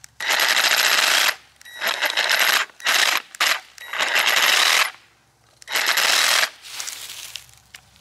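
Ridgid Gen5X 18-volt cordless reciprocating saw with a brushed motor running in about six short bursts, stopping between them, the last one weaker. The owner says the saw is dying.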